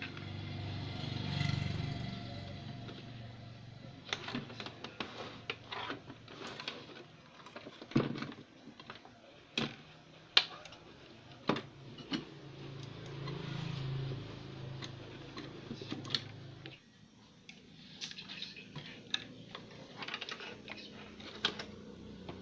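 Hands handling the wiring and plastic connectors on a CRT television's chassis board: irregular clicks, taps and rustling, with a few sharper clicks around the middle.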